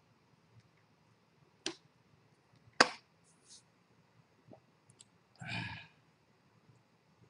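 A few separate sharp clicks and knocks, the loudest about three seconds in, then a short half-second voice-like sound about five and a half seconds in.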